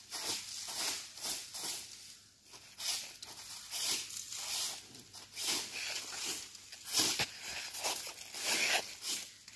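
Plastic pond-liner sheet rustling and crinkling as it is handled and scraped, in a run of irregular short strokes.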